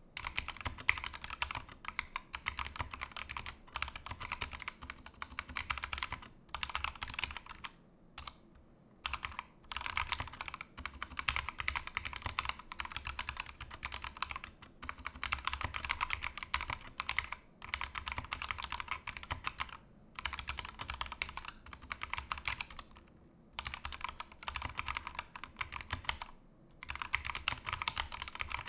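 Typing on a Glorious GMMK2 65% mechanical keyboard with pre-lubricated Glorious Fox linear switches: rapid keystrokes in runs of several seconds, broken by short pauses, the longest about eight seconds in.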